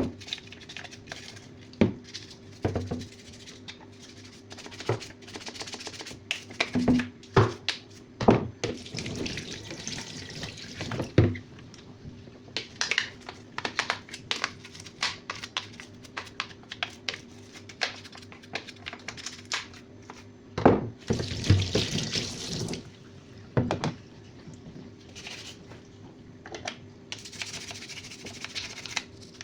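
Tap water running and splashing in bursts, with many sharp knocks and clatters of handling, while a twin-tub washing machine's lint filter is rinsed and cleaned. A faint steady hum runs underneath.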